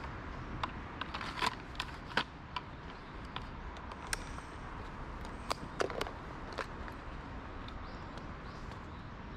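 Small clicks and light knocks of a tree climber's rope hardware and tools being handled: a dozen or so sharp ticks, most of them in the first seven seconds, over a steady background hiss.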